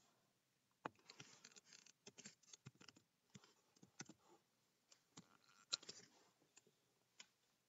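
Faint typing on a computer keyboard: irregular keystrokes in quick runs and pauses, the loudest a little before six seconds in.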